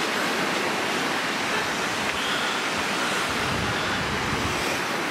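Steady rush of a river flowing below, with wind buffeting the microphone for about a second past the middle.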